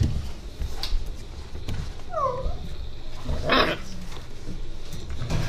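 Inuit sled dog puppies at play: one gives a short falling yelp about two seconds in, followed by a brief rough, noisy vocal burst about a second later. Low knocks and bumps run underneath.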